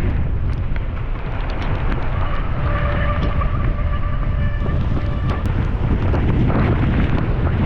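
Wind buffeting the camera microphone over the rumble and rattle of a mountain bike riding a wet trail, with scattered small knocks. A steady high whine sounds from about two seconds in for about three seconds.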